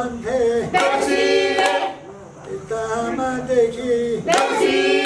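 A group of men and women singing together in phrases, with hand clapping.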